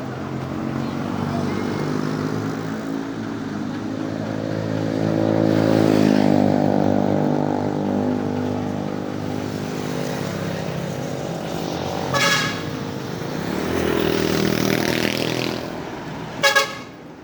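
Truck engine running as it passes, rising in pitch and getting louder about five seconds in, then fading. A short vehicle horn toot sounds about twelve seconds in, and a quick double toot near the end.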